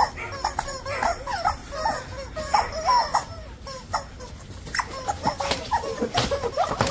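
Rubber screaming-chicken toy squealing many times over in short, bending squawks as it is squeezed and swung, with a few sharp knocks in between.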